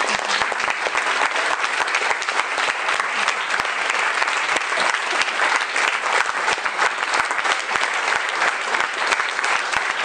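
A crowd applauding: dense, steady clapping by many hands.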